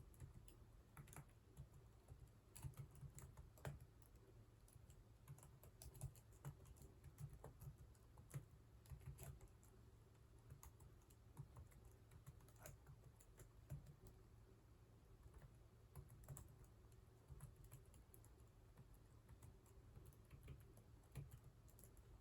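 Faint typing on a computer keyboard: keys struck in quick, irregular bursts of clicks, with short pauses.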